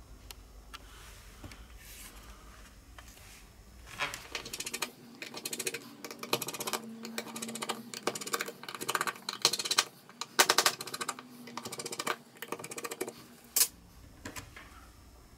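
Small hand tools working on a smartphone during disassembly: quick runs of clicking and scraping on plastic and metal parts, starting about four seconds in and going in bursts, with one sharp click near the end.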